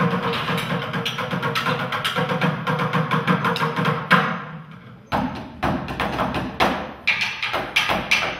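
Live percussion: a fast, dense drum roll over a steady tone, a loud hit about four seconds in, then separate sharp strikes about two a second, each ringing out briefly.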